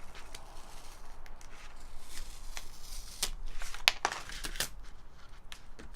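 Packing tape being peeled and torn off a wrapped parcel, with packaging crinkling: a run of short scratchy rips, louder for a moment around the middle.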